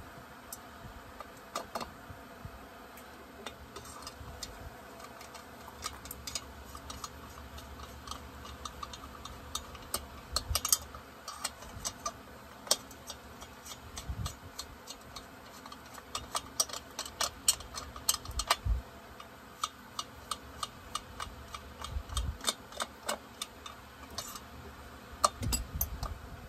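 Irregular light clicks and taps of parts being handled and fitted on an Echo 7310 chainsaw during reassembly, with a dull knock now and then.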